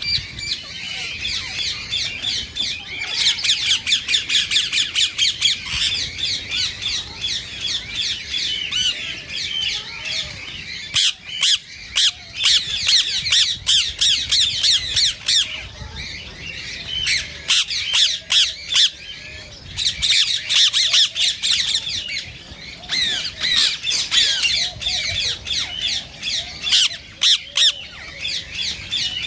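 Indian ringneck parakeets giving rapid runs of shrill squawking calls in bouts of a few seconds, with short lulls between them.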